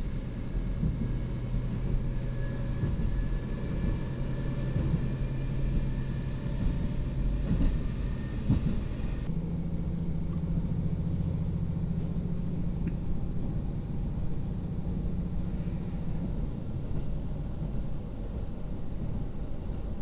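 KiHa 40 diesel railcar heard from inside the cabin: the underfloor diesel engine drones steadily over the low rumble of wheels on rail, its note stepping up a little about nine seconds in.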